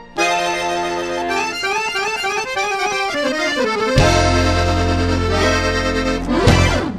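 Background music: a melody of quick notes running up and down, then a loud held chord over deep bass from about four seconds in.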